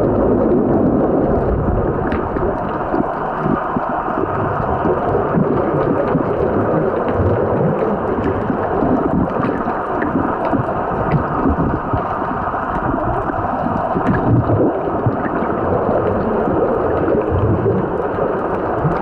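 Muffled underwater rush and rumble of moving water, heard through a compact camera's waterproof housing, with a few faint clicks scattered through it.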